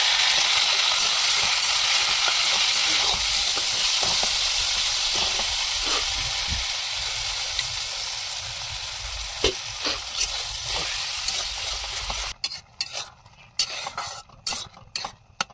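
Food sizzling and frying in a pan while being stirred, with occasional scrapes and taps of the spoon. The sizzling cuts off suddenly about twelve seconds in, followed by a quick run of light metallic clinks of a spoon against the pot.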